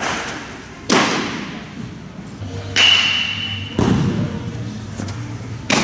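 Baseballs smacking into a leather glove: four sharp pops, among them a changeup landing in the catcher's mitt, each trailing an echo in a large indoor hall. The pop about a third of the way in carries a brief high ring.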